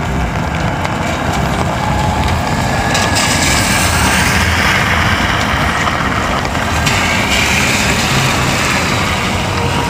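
Cars driving on a rain-soaked road in steady rain, their tyres hissing through the water. The hiss swells from about three seconds in to about seven as a car passes close.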